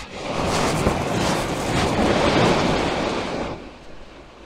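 A small wave breaking and washing up a shingle beach: a rushing hiss that swells, holds for about three seconds and then fades away.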